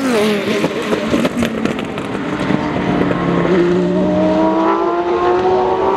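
Racing car engine running hard, its pitch dipping at first and then rising steadily through the second half as it accelerates.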